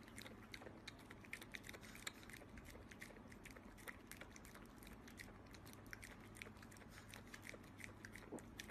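A small dog lapping and chewing a thick green smoothie from a glass: faint, quick, irregular wet mouth clicks and smacks.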